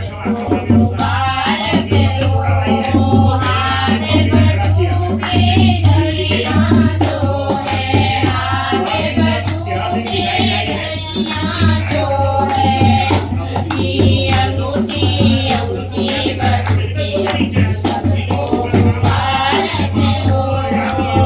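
Kumauni folk badhai geet, a congratulatory song, sung to a hand drum keeping a regular beat.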